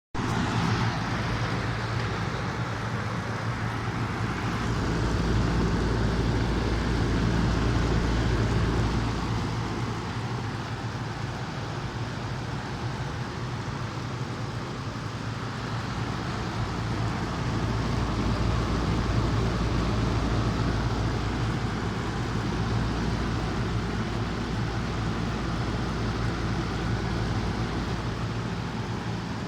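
Lennox air conditioner running: a steady low hum under an even rushing fan noise, swelling a little twice.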